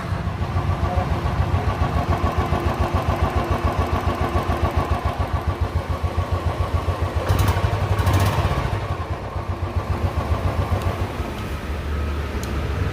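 Royal Enfield Classic 350's single-cylinder engine idling with an even, rapid beat, with a short rev about seven seconds in. It runs without the tick-tick tappet noise after a top-end rebuild with new rocker arms, which the mechanic calls completely silent.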